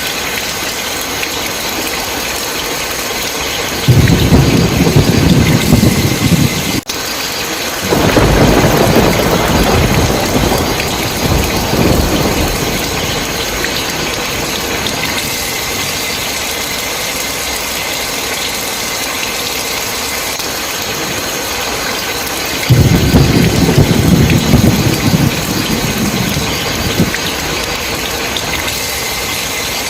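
Heavy rain falling steadily, with three loud low rolls of thunder: one about four seconds in that cuts off abruptly, another at about eight seconds, and a third near twenty-three seconds.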